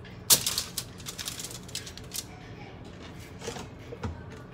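Aluminium foil lining a baking sheet crackling and crinkling as a rack of seasoned pork ribs is laid onto it and handled, with a sharp crack about a third of a second in and a low thump near the end.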